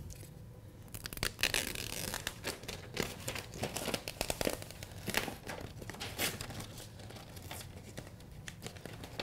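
Release paper being peeled off the back of self-adhered FlexWrap NF flexible flashing: an irregular run of crinkling and crackling as the backing pulls away from the sticky adhesive, starting about a second in.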